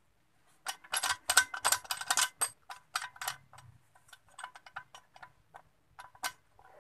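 Steel transmission gears and shift parts in an open motorcycle gearbox clicking and clattering as they are turned and shifted between gears by hand. A dense run of sharp clicks comes in the first couple of seconds, followed by sparser, lighter ticks.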